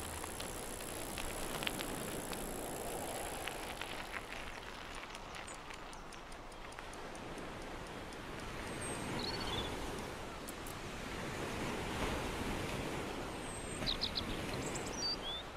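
Seaside ambience: a steady wash of surf that swells and fades slowly, with a few short bird chirps about nine seconds in and again near the end. Faint scattered clicks sound in the first few seconds.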